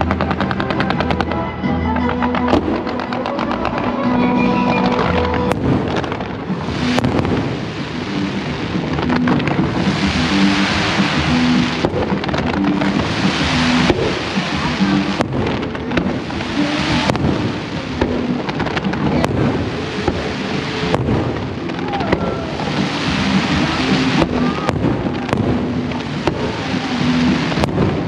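Fireworks display with frequent sharp bangs and swells of crackling, over music playing throughout.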